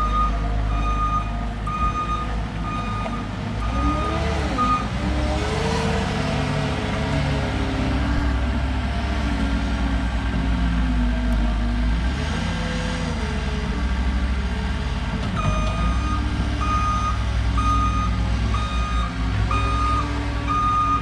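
Caterpillar compact track loader's diesel engine running and rising and falling under load while it works dirt, with its backup alarm beeping steadily as it reverses. The beeping runs for about the first five seconds, stops while the machine moves forward, and starts again about three-quarters of the way through.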